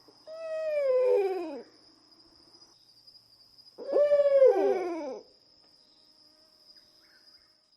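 Owl hooting sound effect: two long hoots, each falling in pitch with an echoing, layered tail, about three and a half seconds apart.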